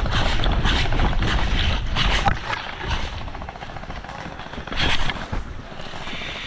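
Airsoft gunfire: a rapid, continuous string of shots for the first couple of seconds, then a few single sharp cracks, over a low rumble.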